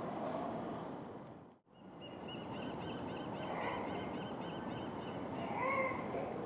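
Steady harbour background noise that drops out for a moment about one and a half seconds in. Then animal calls from a group of California sea lions in the water: a fast run of high chirps, about four a second, and short calls near the end.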